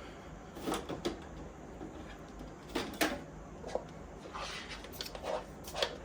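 Scattered light clicks and knocks of a 3D-printed plastic fan bracket being handled and fitted into a metal server chassis, several separate taps spread irregularly across a few seconds.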